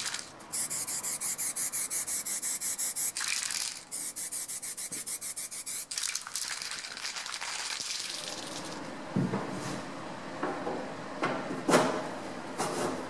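A fast, evenly pulsing rubbing hiss in bursts with short breaks for the first half. In the second half come scattered knocks and clunks as a band saw's metal wheel cover is handled and offered up to the machine.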